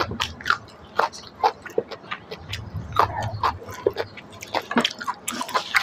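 Chewing and mouth smacking while eating rice and greens: a stream of irregular short clicks and smacks.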